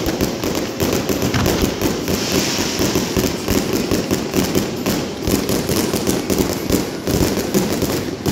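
Fireworks show: a dense, continuous barrage of rapid pops, crackles and bangs, many each second, from aerial bursts and ground fountains.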